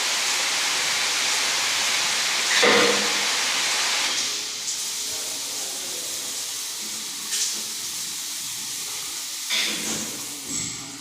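Water running hard from a newly fitted bathroom tap or shower as the pipeline is water-tested: a steady hiss that drops somewhat in level about four seconds in.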